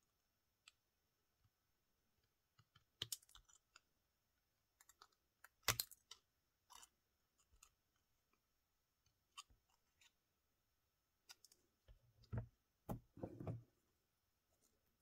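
Scattered small clicks and snips of scissors trimming the edge of a flattened metal bottle cap, each cut a single sharp click. A few duller knocks near the end, as the scissors are set down on the mat.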